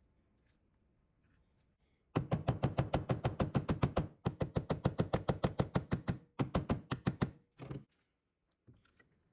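A fast, even run of sharp knocks, about seven a second, in three runs with short breaks, ending with a couple of last strokes.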